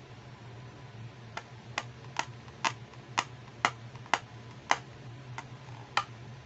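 Fingertips tapping on a hard plastic toy make-up purse: about ten sharp clicks, roughly two a second, starting a little over a second in and stopping near the end.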